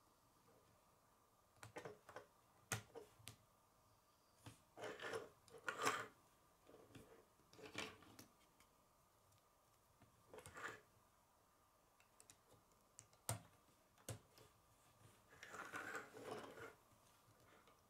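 Plastic K'nex rods and connectors being handled and snapped together: scattered faint clicks and short clattering rustles.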